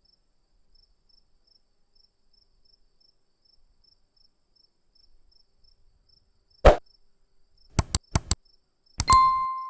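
Crickets chirping steadily and faintly, a thin high pulse about twice a second. From about two-thirds of the way in, loud sharp knocks cut in: one, then a quick group of four, then two more near the end, followed by a short ringing tone.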